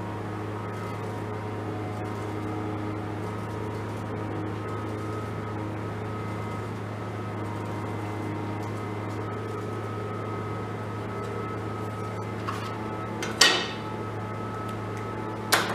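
Steady low machine hum of shop equipment, with two sharp knocks near the end about two seconds apart.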